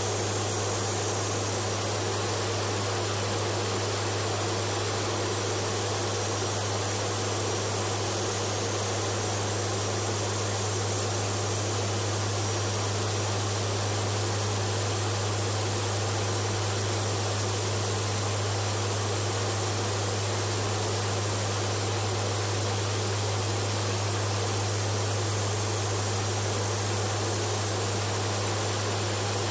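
Flight-deck noise of a WC-130J Super Hercules in flight: the steady drone of its four turboprop engines and propellers, a constant low hum under an even hiss.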